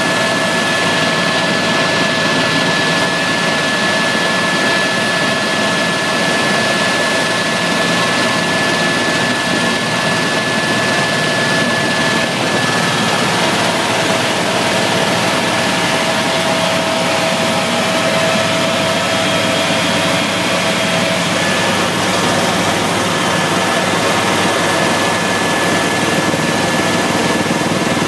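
Helicopter engine and rotor noise heard from inside the cabin in flight: a steady, loud drone with a thin, steady high whine running through it.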